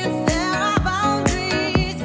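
Background music: an electronic pop track with a singing line over a steady kick drum, about two beats a second.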